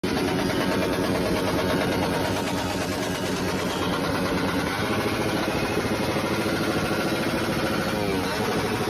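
Street motorcycle engine idling steadily through its exhaust, with a brief sweep in pitch about eight seconds in.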